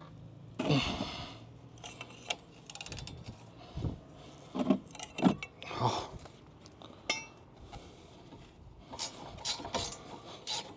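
Metal hand tools clinking and knocking against each other and the brake caliper as a stuck caliper bolt is worked loose with a wrench. Irregular clinks and knocks, with a longer clatter about half a second in.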